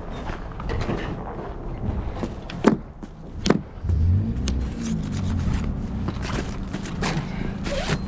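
A car engine running, with a few sharp knocks; a steady low engine hum comes up about four seconds in.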